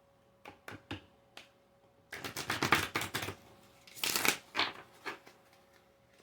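A deck of oracle cards being shuffled by hand: a few light clicks, then two bursts of rapid card flutter, the first about two seconds in and the second about four seconds in.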